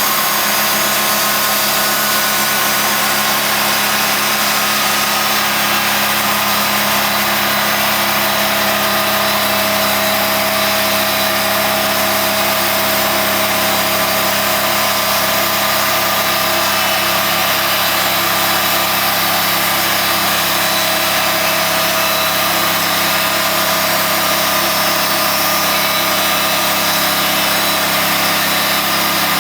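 Engine-driven sawmill running at a steady, even pitch while its blade cuts through a large mesquite log.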